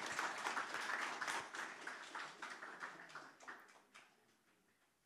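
Small audience applauding, the clapping thinning out and dying away about four seconds in.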